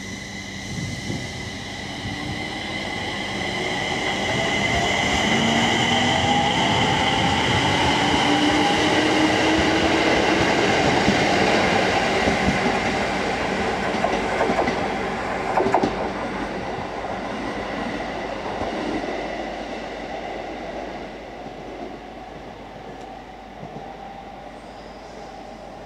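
JR East 701 series 5500-subseries electric train pulling away and accelerating: its inverter-driven traction motors give a whine that rises in pitch, and wheels clatter over the rails as it passes. There is a sharp clack about 16 seconds in, and the sound then fades as the train moves off.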